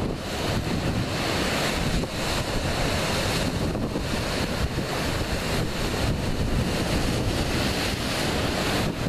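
Ocean surf washing and breaking against a rocky shoreline, a steady rushing noise, with wind buffeting the microphone as a low rumble.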